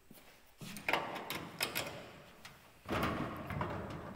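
Sheet-metal handling at a car door: Cleco pliers and a Cleco fastener clicking against the door panel, a run of sharp metallic clicks, then a louder clunk near the end as the door shifts, with rattling after it.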